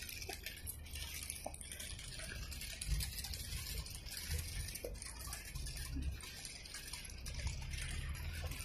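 Faint outdoor ambience of a city square: an uneven low rumble with a steady hiss over it and a few small clicks.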